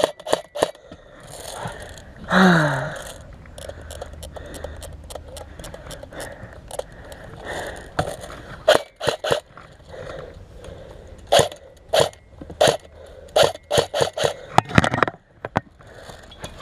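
Irregular sharp clicks, snaps and crunches close to the microphone, from an airsoft player's movement and gear. About two and a half seconds in comes a short grunt that falls in pitch.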